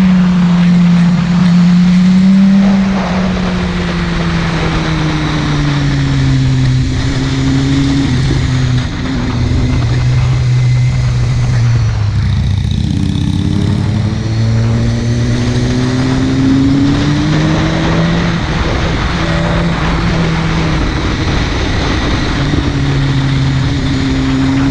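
Buell 1125CR's 1125 cc V-twin engine under way, its note rising and falling again and again as the rider opens and closes the throttle and changes gear.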